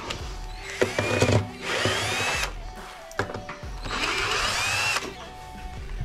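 Cordless impact driver with a socket on it, run in two short bursts with its pitch rising as it spins up each time, after a few knocks about a second in.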